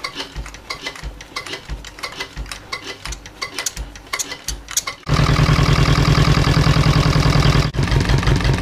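Slow, regular thumps and clicks, a little under two a second, then about five seconds in the Volvo Penta MD2B two-cylinder marine diesel fires and settles into a loud, steady run.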